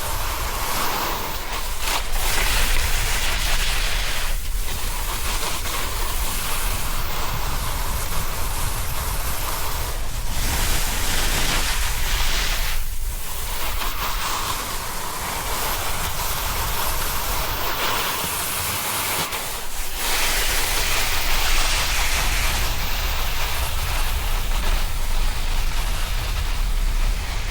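Wind buffeting the camera microphone during a fast snowboard descent, with the board's base and edges hissing and scraping over the snow. The noise dips briefly a few times.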